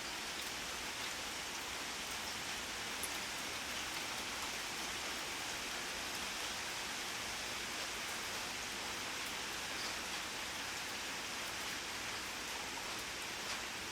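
Steady rainfall, an even hiss of rain on a surface with a few separate drops ticking.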